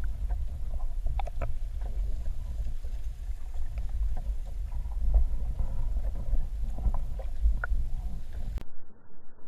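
Muffled low rumble of water moving past an underwater camera housing as it is pulled along, with scattered light clicks and ticks. Near the end the sound suddenly turns duller and quieter.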